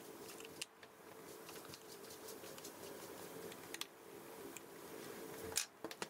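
Faint handling of a MacBook Pro's aluminium bottom case: a few light clicks as hands press on the case, and a knock near the end as the laptop is turned over, over a faint steady hum.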